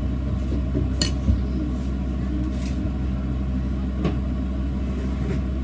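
Steady low hum of a running kitchen appliance, with a few light clinks of dishes, one about a second in and another around four seconds.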